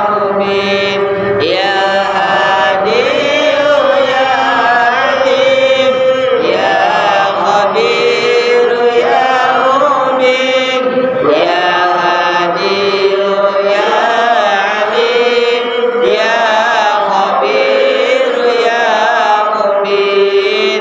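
Melodic Arabic chanting of istighosah supplication: long sung phrases, each sliding up at its start, then held on wavering, ornamented notes.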